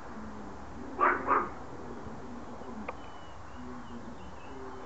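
A dog barks twice in quick succession, about a second in.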